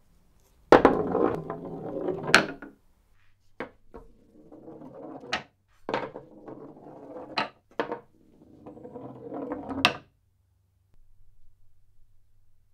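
Balls rolling along the wooden return runs inside a bar billiards table. Each roll is a rumble that ends in a sharp clack as the ball stops, several in a row, the first and loudest about a second in.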